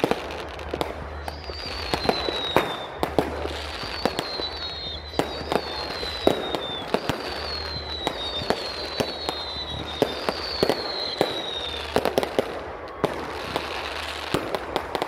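Fireworks display: a dense run of sharp bangs and bursts, with a high whistle falling in pitch that recurs every second or two.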